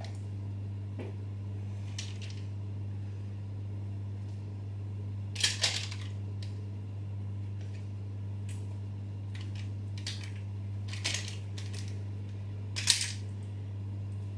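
A wooden spoon scraping and knocking against a glass measuring jug as thick brownie batter is scraped out into a glass baking dish: a few short, sharp knocks and scrapes, the loudest near the end, over a steady low hum.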